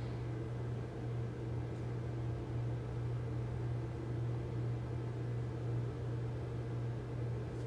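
Steady low hum with a faint even hiss underneath: constant room background noise.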